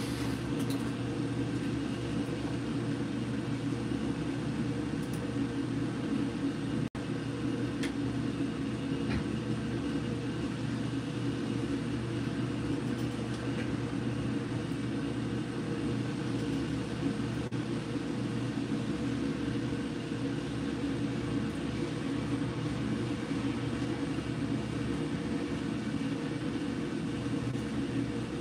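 Steady mechanical hum with a low drone, like a motor or fan running without change.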